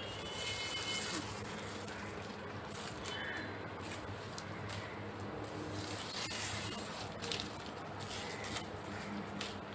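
Dry coconut palm leaflets rustling and crackling as they are handled and a knife strips the ribs free, with a few sharp snaps along the way.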